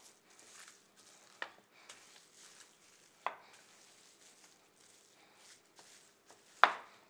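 Seitan dough wrapped in plastic wrap being rolled and pressed with a wooden rolling pin on a plastic cutting board: soft crinkling of the wrap, with three sharp knocks about two seconds apart, the last near the end the loudest.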